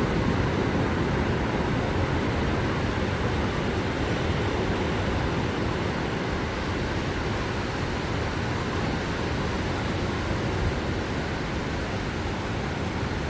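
Ocean surf washing onto the beach: a steady, even rush of breaking waves that eases off slightly over the stretch.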